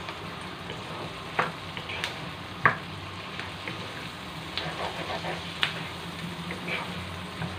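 Pork pieces with onion and tomato sizzling in a nonstick frying pan while a wooden spatula stirs them, with scraping and a few sharp knocks of the spatula against the pan, the loudest a little under three seconds in.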